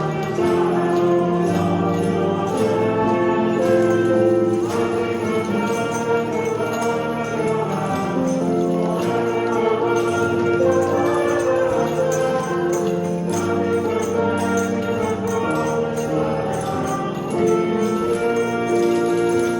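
Recorded music with a choir or singing voices over sustained instrumental chords and a light jingling percussion, playing steadily.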